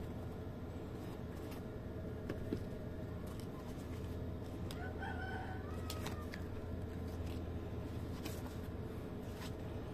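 A rooster crowing faintly about five seconds in, over a steady low hum. Light clicks and rustles come from the shoe and its paper tag being handled.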